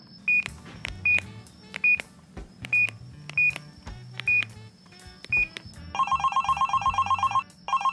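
Electronic beeps from a children's toy telephone's keypad, seven short high beeps about a second apart as its buttons are pressed. About six seconds in, the toy phone's electronic ringtone starts, a fast trilling ring that pauses briefly and starts again near the end, over soft background music.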